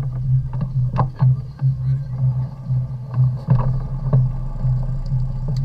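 Motorboat engine running steadily with a low, slightly pulsing hum as the boat moves under way, with a few short knocks now and then.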